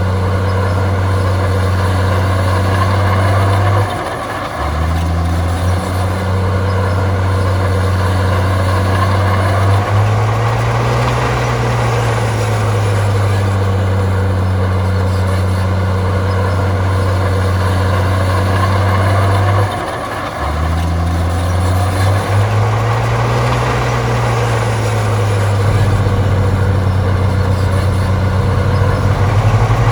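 Heavy diesel engine of earthmoving machinery running steadily. Its pitch drops suddenly about four seconds in and again about twenty seconds in, then climbs back up each time. A heavier, clattering note comes in near the end.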